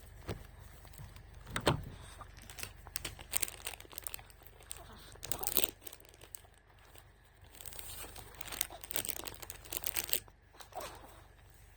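Irregular crinkling and rustling, broken by scattered sharp clicks, in uneven bursts with short pauses between them.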